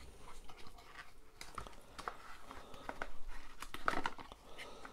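Cardboard collector box being handled and opened with gloved hands: scattered light rustles, scrapes and small taps, busiest about four seconds in.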